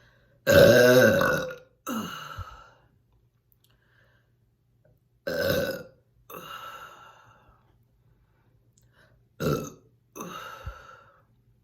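Three loud burps brought up after drinking fizzy Fresca soda, each followed by a softer one. The first, about half a second in, is the longest and loudest.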